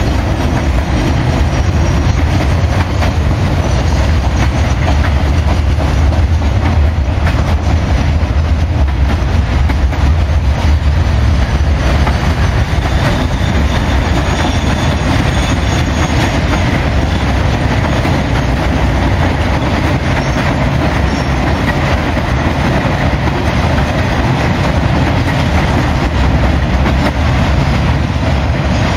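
Freight wagons rolling past: a steady low rumble of steel wheels on the rails with repeated clicks as the wheels cross rail joints.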